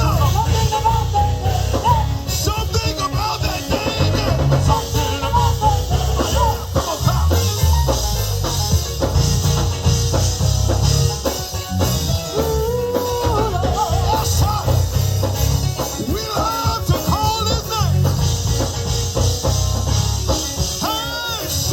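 Live gospel band playing: organ with drums and bass guitar, a steady driving beat under melodic organ lines.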